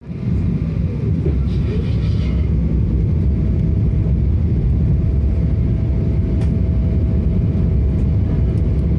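Boeing 777 cabin noise in flight: a steady, loud, low roar of engines and airflow with a faint constant whine above it, and a short higher sound about two seconds in.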